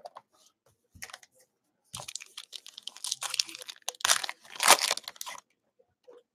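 A foil trading-card pack wrapper crinkling and tearing as it is ripped open by hand, after a few light clicks. The crackle builds from about two seconds in and is loudest shortly before it stops, near the end.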